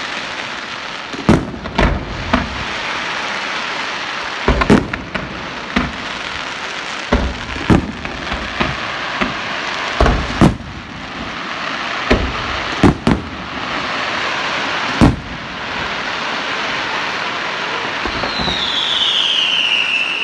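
Fireworks display: a run of irregular bangs from aerial shells bursting, over a steady hiss. Near the end a whistle falls in pitch.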